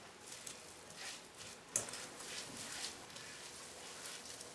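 Mashed potato, breadcrumbs and cooked vermicelli being mixed into a dough in a glass bowl, first with a spoon and then kneaded by hand: faint, soft squishing and scraping. One sharp tap a little under two seconds in.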